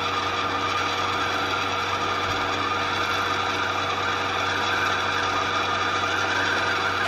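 Brother CS5055PRW sewing machine running steadily at full speed, spinning the bobbin winder to wind thread onto a bobbin: an even motor whine over a low hum.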